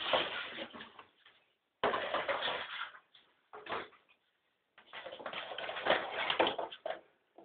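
Cardboard packaging handled by hand: the box and its cardboard inserts rustling and scraping in three longer stretches, with a short knock between the second and third.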